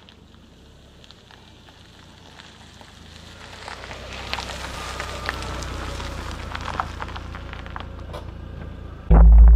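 Car tyres crunching over gravel as the car rolls in, a crackling noise that grows louder from about three seconds in. Just before the end a sudden loud, deep boom cuts in and holds.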